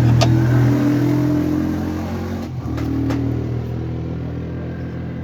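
Tractor engine running steadily, with a few sharp clicks over it.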